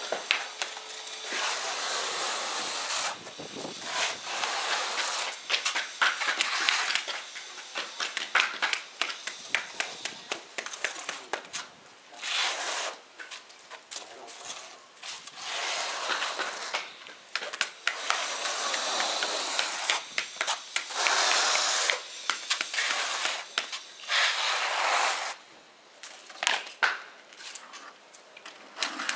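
Tile-setting work on a concrete floor: stretches of scraping as a steel trowel spreads and combs thin-set mortar, broken up by many small clicks and knocks as pebble mosaic sheets are laid and pressed into the mortar.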